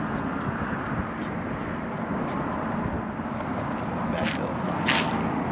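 Steady rushing noise of road traffic on the adjacent highway, with no single distinct event standing out.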